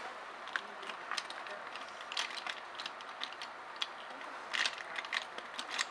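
Scattered light clicks and ticks at an irregular pace over a steady hiss.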